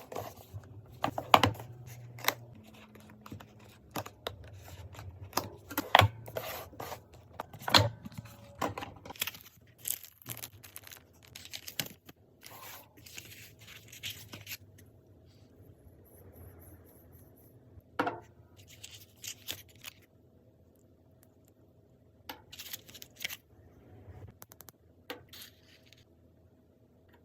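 Packaging being opened and handled: tearing, scraping and rustling of box and wrapping, with scattered sharp clicks and knocks. Dense for the first half, then sparser handling noises.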